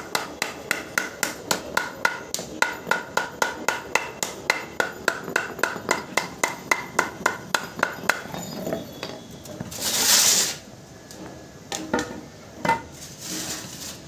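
A hammer taps steadily along a wooden batten, about three to four blows a second with a light metallic ring, bending the edge of a thin aluminium sheet into a tray rim. The tapping stops after about eight seconds. About ten seconds in comes a brief loud rasp, then a few separate knocks.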